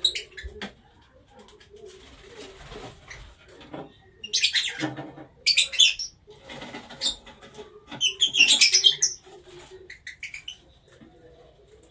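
Small pet parrots, Fischer's lovebirds and budgerigars, chirping in several shrill bursts over fainter background chatter.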